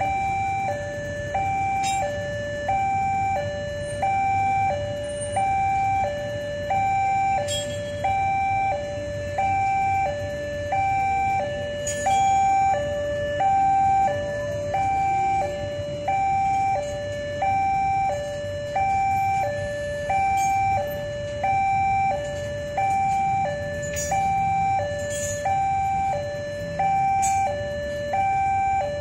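Railway level-crossing warning alarm sounding its repeated two-tone high-low electronic chime, about one cycle a second, warning of an approaching train. Underneath is a low rumble of waiting motorcycle engines.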